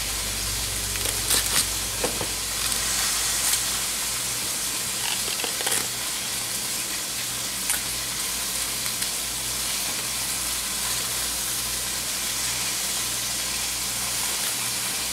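Chuck roast browning in a pan on medium-high heat, sizzling steadily. A few sharp, dry crackles of papery onion skin being peeled off by hand come through in the first half.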